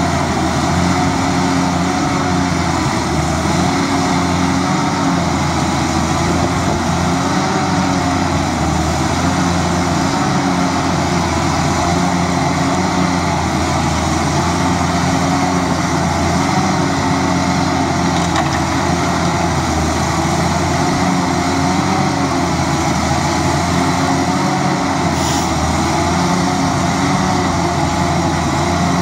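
Heavy diesel yard machinery running continuously: a wheel loader's engine and a waste-processing machine droning together, the engine note rising and falling every few seconds as the loader works its bucket.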